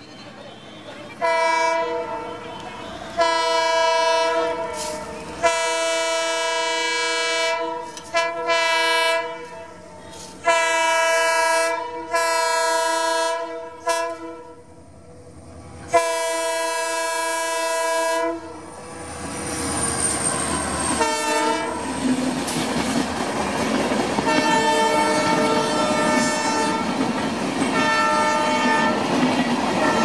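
WDP-4 diesel locomotive's air horn sounding a long series of about nine blasts, some long and some short, as it approaches. After that the wheels of the passing coaches clatter over the rail joints, growing louder.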